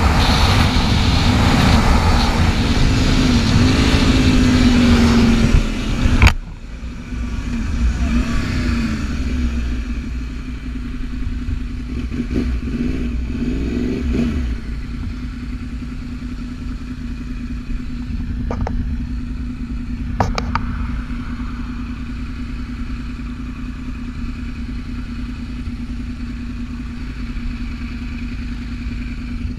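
Inline-four sportbike engine under hard acceleration with heavy wind rush, its pitch climbing. About six seconds in the sound drops off abruptly. The revs then rise and fall a few times before settling into a steady, quieter engine hum.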